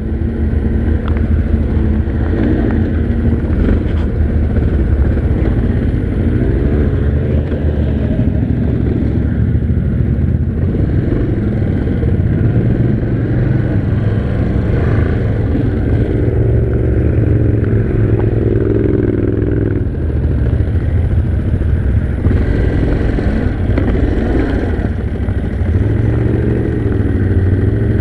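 Yamaha Grizzly 700 ATV's single-cylinder engine running at low speed, its pitch rising and falling with the throttle.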